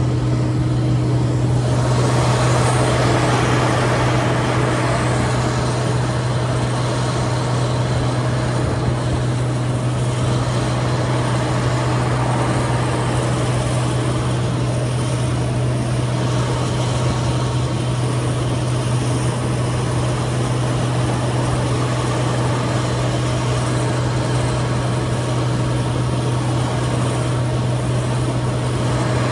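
Case IH 2388 combine running steadily: a deep diesel drone with a broad rush of machinery noise over it, which grows louder about two seconds in.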